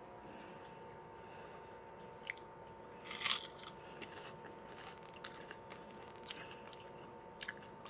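A person biting into and chewing crunchy Kkokkalcorn corn snacks: one loud crunch about three seconds in, then a few quieter crunches while chewing.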